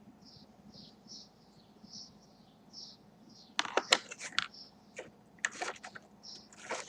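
Clicking and crinkling of packaging being handled, starting about halfway through, over faint high chirps repeating about twice a second.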